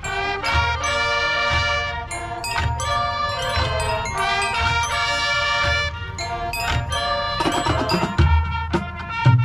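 High school marching band playing: held chords from the winds and brass, changing about every second, over regular low drum hits.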